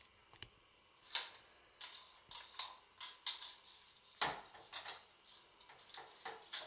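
Clicking and rattling of three wired-together cups and florist's wire being handled, about ten sharp clicks and knocks in irregular succession, with the loudest knock about four seconds in as the cups are set down on the metal tabletop.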